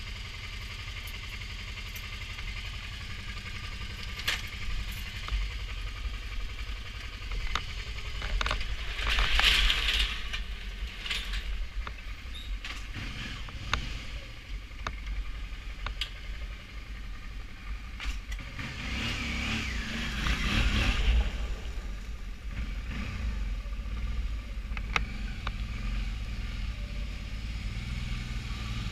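Motorcycle engine idling, then pulling away and riding slowly, with the engine and road noise rising about nine seconds in and again around twenty seconds in.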